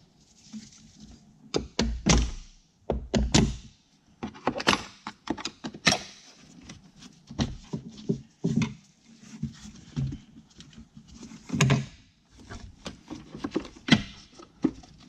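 The clips of a BMW F30's plastic engine air filter housing being pried loose and the lid worked free: a run of irregular sharp clicks, snaps and hollow plastic knocks. Near the end the lid is lifted off the filter.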